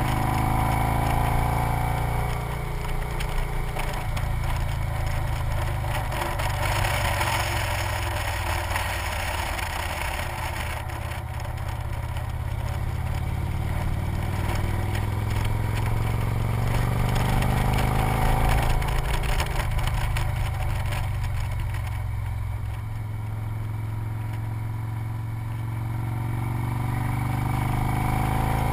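Victory motorcycle's V-twin engine running at road speed, heard from the bike with wind rush over the microphone; the engine's pitch rises and falls a few times.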